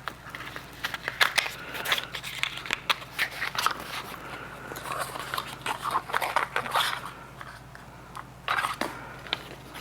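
Packaging being opened and handled by hand: dense, irregular crinkling and crackling for most of the time, then a short burst of crackles near the end.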